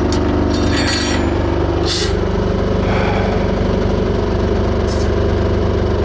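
Small narrow-gauge forest-railway diesel locomotive running with a steady engine drone, heard from the carriage coupled behind it. Two short hisses come through, about two seconds in and again near the end.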